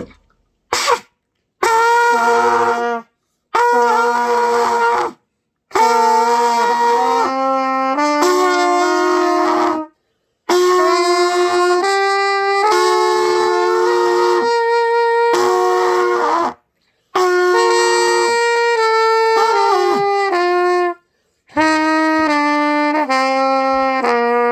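Trumpet played by a learner practising long tones: about six phrases of held notes, several notes per breath stepping up and down in pitch, with short breaks for breath between them.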